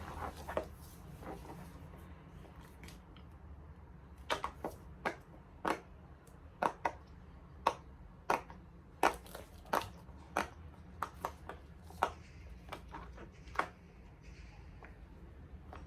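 Large silicone pop-it fidget toy having its bubbles pressed: a string of sharp, irregular pops, about one or two a second and sometimes in quick pairs, from about four seconds in until near the end.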